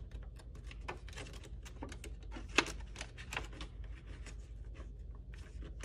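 Paper banknotes rustling and crackling as a stack of bills is handled and slid into a clear plastic pouch of a ring-binder cash envelope, with many small clicks and taps and one sharper click about two and a half seconds in.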